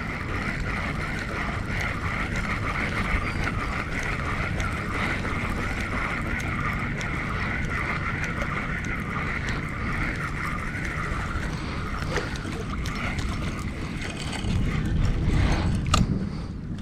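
Fishing reel being cranked, a steady whir that pulses evenly with each turn of the handle, stopping about eleven seconds in. Near the end, wind buffets the microphone.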